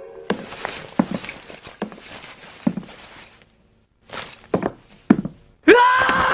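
A string of irregular thuds and knocks, a short silent gap, then a few sharper knocks. Near the end a pitched sound rises and holds.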